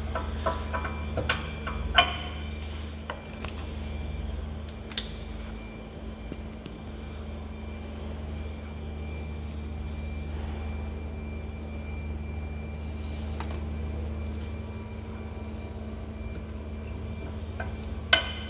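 Sharp metallic clinks and taps of brake parts and hand tools being handled, several in the first few seconds and a couple more near the end, over a steady low hum.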